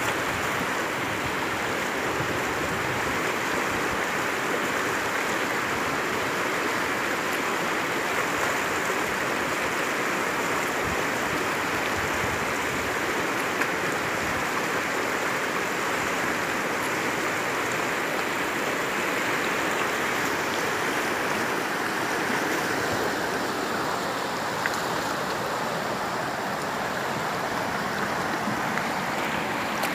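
River rapids: fast, silty water rushing over rocks in a steady, unbroken rush. The higher hiss eases a little in the last few seconds.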